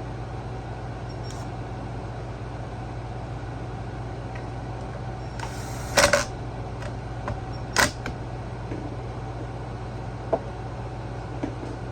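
Steady hum of an air conditioner running, with a few sharp clicks and knocks of parts being handled, the loudest about six and eight seconds in.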